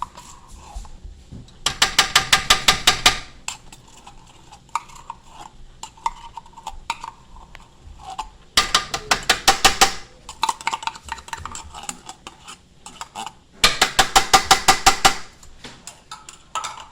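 Metal spoon clattering rapidly against a cooking pot as tomato paste is stirred into the sauce. It comes in three bursts of quick ringing strikes, about eight a second, with lighter clinks in between.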